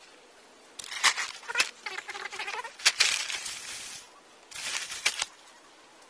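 A large sack crinkling and rustling as it is handled and set down, in two bouts with sharp crackles: a long one of about three seconds, then a shorter one near the end.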